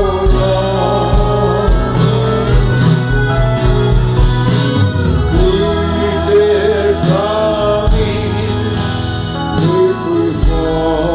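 Live church worship music: a sung melody over keyboards and electric guitars, with sustained bass notes beneath.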